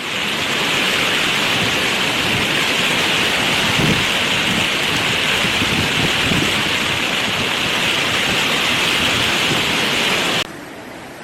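Floodwater rushing downhill in a loud, steady torrent. It cuts off suddenly near the end, leaving a quieter flow of water.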